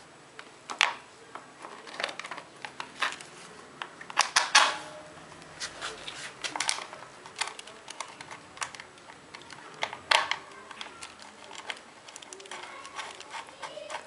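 Irregular light clicks and taps of small parts and wiring being handled and fitted inside a Honda CD 70 motorcycle's headlight shell, a few sharper knocks among them.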